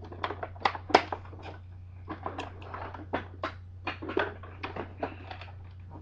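Plastic parts of a Hoover Dimension II upright vacuum being handled and unclipped: a run of irregular clicks and knocks, the loudest about a second in.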